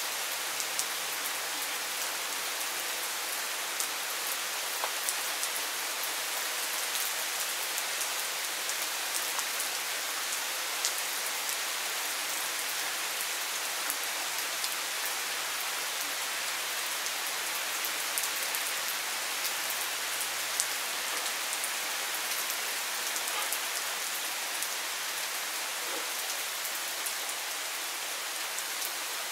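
Thunderstorm rain falling steadily on trees and garden plants: an even hiss with many small drop ticks.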